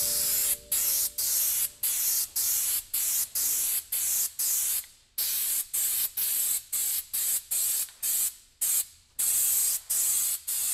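Aerosol spray-paint can spraying in short repeated bursts, about two a second, with one slightly longer break late on.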